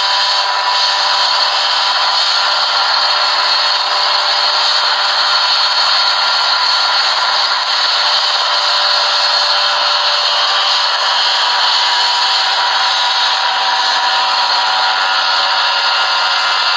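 Small ultralight single-seat helicopter hovering: its engine and rotor run steadily at constant power, with no change in pitch.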